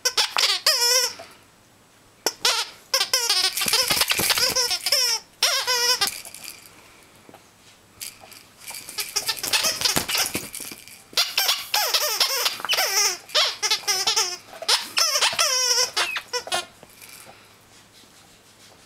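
Squeaky plush snake toy squeaking over and over as a Yorkshire terrier chews and shakes it. The squeaks come in quick runs of wavering squeals with short pauses, then stop near the end.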